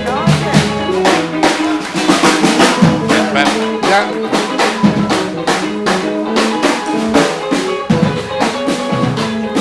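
Upbeat band music led by a busy drum kit, with snare, bass drum and rimshot hits in a quick steady beat over held pitched instrument notes.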